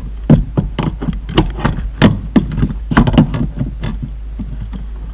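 Irregular clicks and knocks, about a dozen in four seconds, as a replacement seat belt retractor is handled and dropped onto its bracket inside a car's B-pillar.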